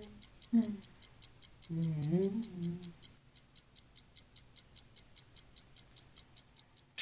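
A person humming with closed lips: a short falling vocal sound about half a second in, then a wavering hum for about a second around two seconds in. A faint, fast, even ticking, about five ticks a second, runs underneath.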